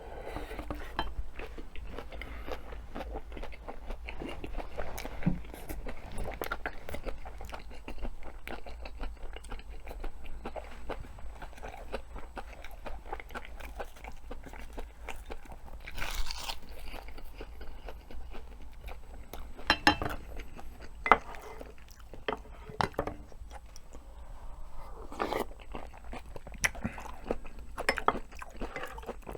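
Close-miked chewing and crunching while eating bibimbap and pork kimchi stew, with scattered sharp clicks and taps throughout.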